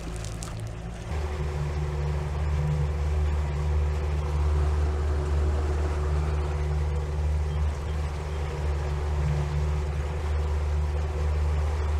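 A boat's motor running steadily underway, a low drone that grows louder about a second in and then holds.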